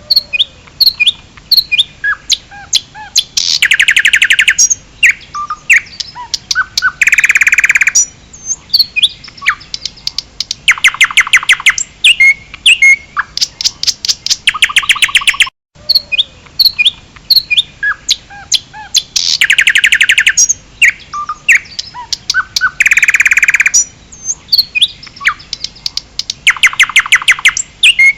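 A songbird singing: quick high chirps and whistled notes, broken up by several fast rattling trills of rapidly repeated notes. The same passage of song plays twice, with a brief break about halfway through.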